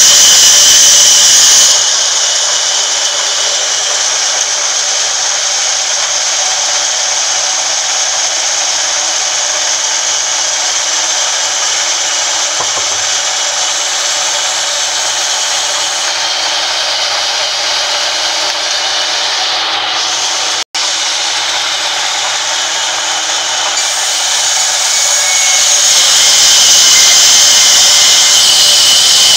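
Sawmill band saw running and cutting lengthwise through a long log, a loud, steady hiss. The sharp high part of the hiss drops away about two seconds in and comes back near the end.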